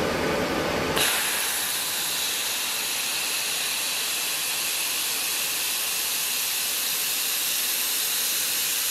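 xTool MetalFab handheld laser welder welding 1.5 mm stainless steel: a steady hiss from the torch that starts suddenly about a second in, as the weld begins, and holds even.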